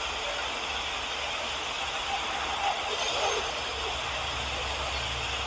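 Steady hiss with a low hum underneath that grows a little stronger about four seconds in, and a few faint, brief squeaks around three seconds in.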